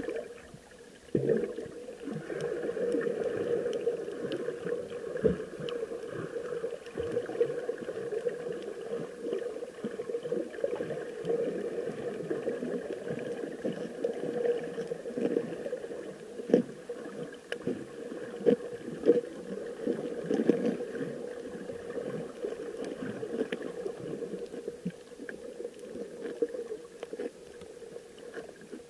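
Muffled underwater water noise picked up by an action camera held underwater: a steady low sloshing and gurgling, with scattered small knocks and clicks. It turns louder about a second in.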